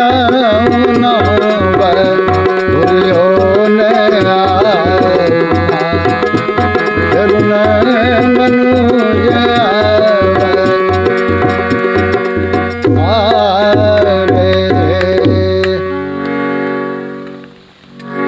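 Instrumental close of a devotional song: tabla keeping a steady rhythm under a wavering, sustained melody line. About three-quarters of the way through the drumming stops and held chords sound on alone, fading and swelling again near the end.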